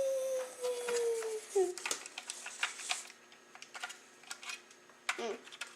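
A voice holds a long, slightly falling hum-like tone for about the first second and a half. Then hard plastic model-kit parts click and tap many times in irregular clusters as they are handled and fitted together.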